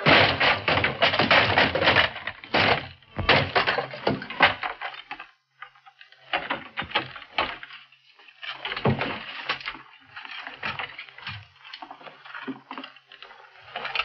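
A rapid run of loud knocks and bangs, dense for about the first five seconds, then sparser, quieter knocks and thuds.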